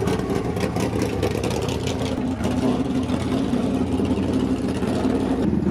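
Late model race car engines running steadily, with a cut to a different engine sound near the end.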